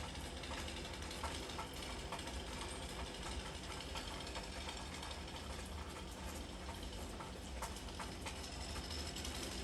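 Steady rain hiss with scattered drips ticking, over a low rumble.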